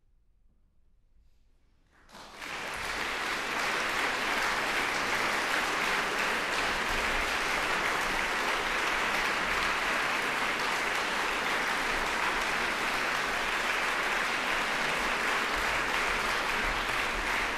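A quiet pause of about two seconds after the piece ends, then an audience breaks into applause and keeps clapping steadily.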